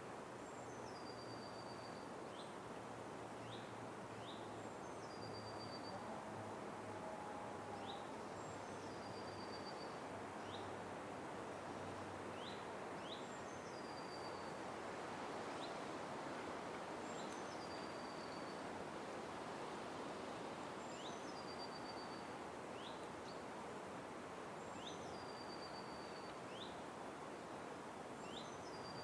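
Forest ambience: a steady faint hiss with a small bird calling over and over, about every three seconds. Each call is a high note that drops and holds briefly, followed by two short chirps.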